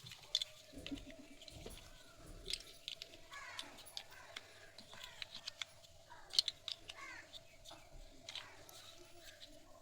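Irregular small clicks and taps of plastic toy blocks being handled, with birds chirping in the background and a faint steady hum.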